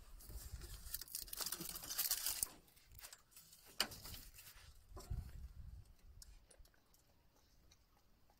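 Scraping and rustling from hands working on small parts, with a few sharp clicks around the middle, fading to faint background after about five seconds.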